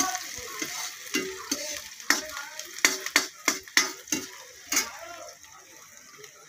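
Metal spatula scraping and knocking against a kadhai, stirring chopped onion, garlic and green chilli sizzling in hot oil. The strokes come about two or three a second, then ease off near the end, leaving the sizzle.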